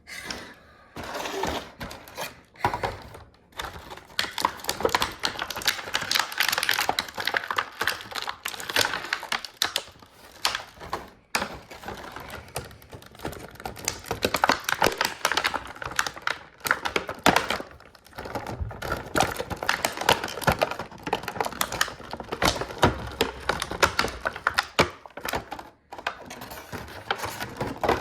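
Plastic toy packaging being handled and opened: dense, irregular crackling and clicking with occasional knocks.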